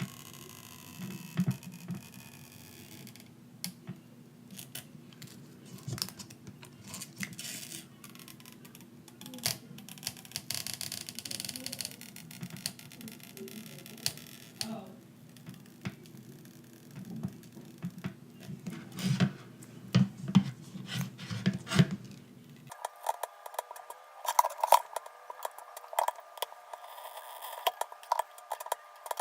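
Irregular small clicks, taps and scrapes of hands and a plastic pry tool working on an iPhone 6, easing out the adhesive strips under its battery. Near the end the sound abruptly turns thinner, with a faint steady hum under the clicks.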